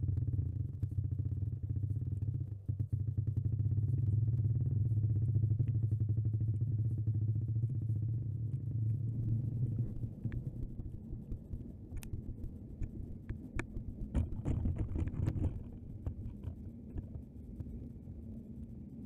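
Muffled low rumble picked up by a dashcam's microphone sealed in a plastic food-container box as it sinks underwater. A few sharp knocks come about twelve seconds in, then a burst of rustling noise, after which the rumble drops lower and quieter.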